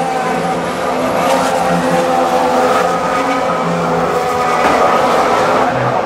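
Several 2014 Formula One cars with 1.6-litre turbocharged V6 hybrid engines running through a corner one after another, their engine notes overlapping at different pitches.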